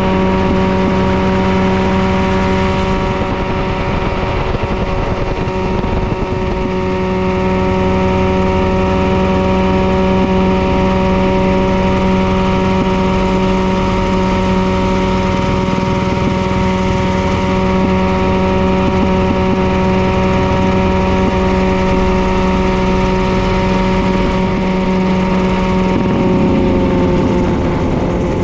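Mirocopter SCH-2A coaxial ultralight helicopter in flight: its engine runs with a loud, steady drone, dropping slightly in pitch near the end.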